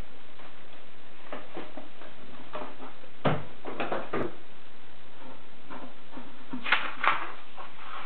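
A sheet of paper handled on a wooden tabletop: rustled, folded in half and pressed flat by hand. Short crisp rustles and taps come about three to four seconds in and again near seven seconds, over a steady background hiss.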